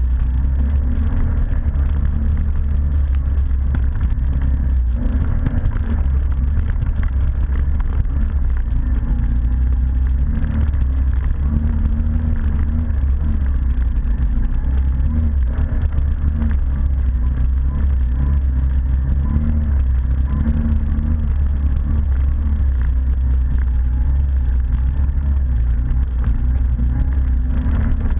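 ATV engine running steadily during a ride, a continuous low rumble whose pitch wavers a little with the throttle.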